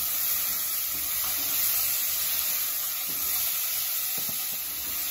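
Chopped collard stems sizzling steadily in hot oil as they are sautéed in a pot.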